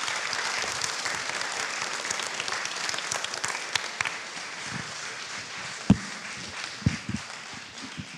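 Audience applauding, the clapping slowly thinning out toward the end; a few dull thumps sound in its last seconds, the loudest a single knock about six seconds in.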